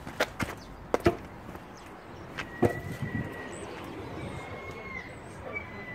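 Several sharp knocks and clacks close to the microphone in the first few seconds, then a kick scooter's wheels rolling away over a tarmac driveway in a low steady rumble. Faint high chirps and thin whistles sound over it.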